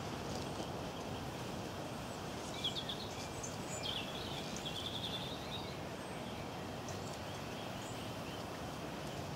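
Steady outdoor background noise with small birds chirping, a run of quick high chirps from about two and a half to five and a half seconds in and a few more later.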